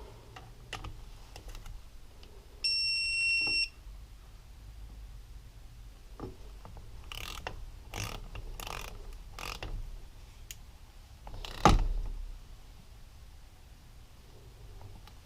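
A single steady electronic beep lasting about a second, about three seconds in, from a digital torque wrench signalling that a small engine bolt has reached its set torque. Around it come light metallic clicks and clinks of tools and parts, the loudest a sharp knock near the end.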